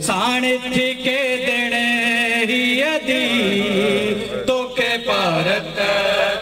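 A male noha reciter chanting a Shia lament, holding long wavering notes. About four and a half seconds in there is a short break, then a lower phrase.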